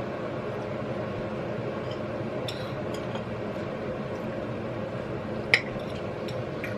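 Cutlery clinking against plates and dishes during a meal: a few light clicks and one sharper clink about five seconds in, over a steady low background noise.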